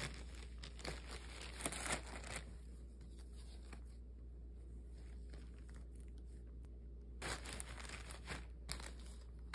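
Thin plastic shopping bag crinkling and rustling in short bursts as knit sweaters are handled in it, with a quieter stretch in the middle.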